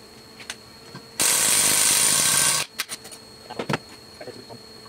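Cordless power tool running in one burst of about a second and a half, undoing a 14 mm bolt on a cylinder head, then cutting off suddenly. Light clicks and knocks of tools being handled come before and after.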